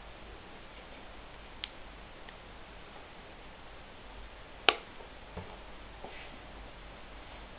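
A few sharp clicks over steady background hiss in a quiet room: a small one about a second and a half in, a much louder one a little past the middle, then a couple of faint ticks.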